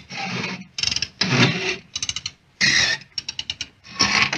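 Drill bit cutting into the metal of a safe, a grinding, scraping sound in short repeated bursts with brief gaps between them.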